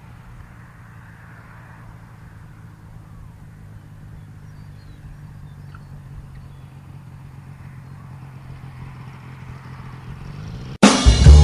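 Excalibur light aircraft's pusher engine and propeller running with a steady low drone as it lands and rolls along the runway, growing gradually louder. Loud guitar-and-drums music cuts in suddenly near the end.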